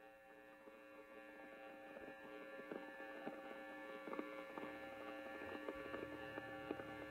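Quiet background music fading in: a held, droning chord with scattered light clicks, growing steadily louder.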